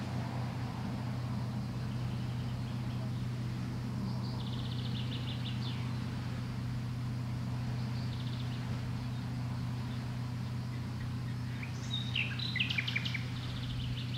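Small birds chirping in short rapid trills, the loudest burst of calls about twelve seconds in, over a steady low hum.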